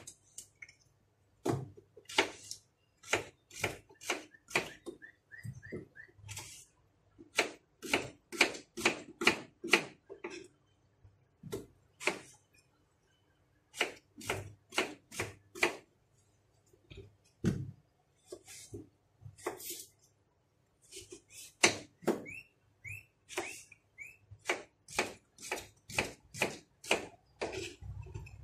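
Kitchen knife chopping raw potatoes on a plastic cutting board: sharp taps of the blade hitting the board, in irregular runs of several a second with short pauses. Twice a short run of small high chirps sounds between the cuts.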